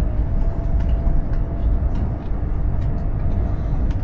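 Steady low rumble of a Chinese high-speed train running at speed, heard inside the passenger carriage, with a faint steady hum over it.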